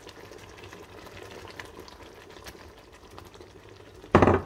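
Pork in a milky sauce simmering in a frying pan, with light bubbling and small ticks as red kidney beans are tipped in from a bowl. A short, loud burst sounds near the end.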